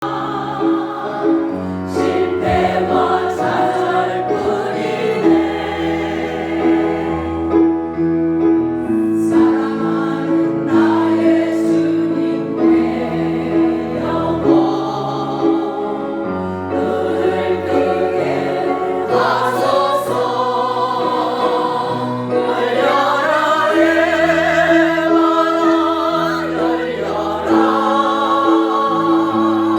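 Christian praise music: choral singing over sustained chords, with a long held high note and a bass line that changes every few seconds.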